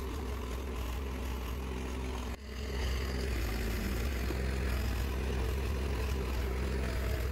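Caterpillar tracked excavator's diesel engine running steadily with a low hum as it works dirt; the sound drops out for an instant a little over two seconds in and then carries on slightly louder.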